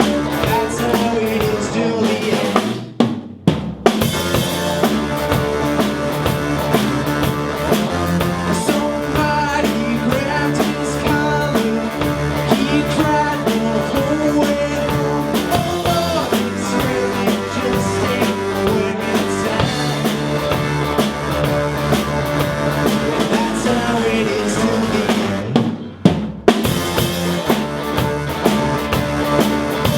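Rock band playing live: a full drum kit with snare and bass drum driving under guitars. The band stops briefly for about half a second twice, once about three seconds in and again near the end.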